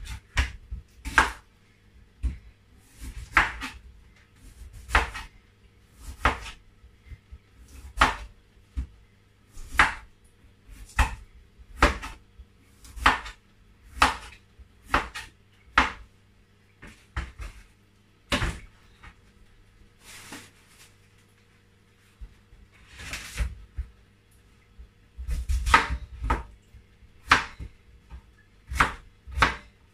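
A kitchen knife chopping a raw yam on a wooden chopping board. Sharp knocks come roughly once a second, unevenly spaced, with a few rougher, longer strokes among them.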